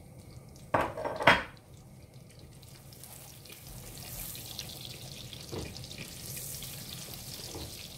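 Melted butter sizzling in a stainless-steel pan with green cardamom pods and cloves, a steady hiss that builds from about three seconds in as a silicone spatula stirs it. Two sharp knocks about a second in are the loudest sounds.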